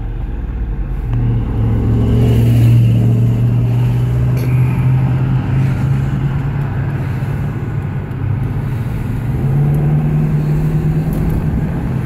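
Ford Thunderbird's 3.9-litre V8 running with the top down as the car pulls away and accelerates, a steady drone that steps up in pitch near the end as the automatic transmission shifts, with wind and road noise.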